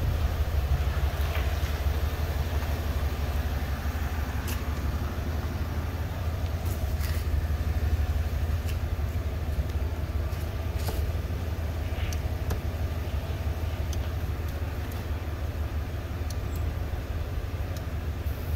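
Vehicle engine idling, a steady low rumble, with a few faint clicks.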